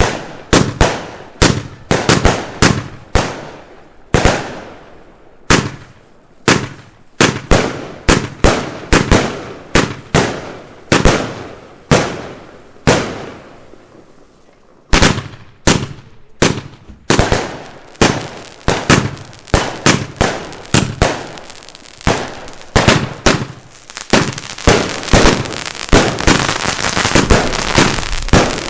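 Firework batteries (cakes) firing: a rapid series of sharp bangs, about two to three a second, with a brief pause about halfway through. Near the end the shots thicken into a dense, continuous crackle.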